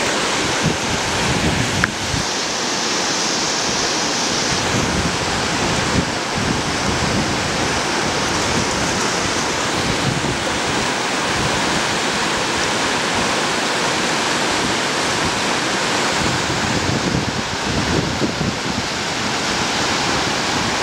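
Steady rushing roar of whitewater in a river rapid, with wind buffeting the microphone.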